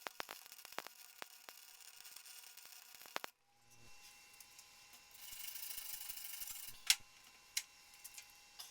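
Faint clicks and handling noises from tools or metal parts, several sharp clicks in the first three seconds, a short hiss about five seconds in, and a few more single clicks near the end.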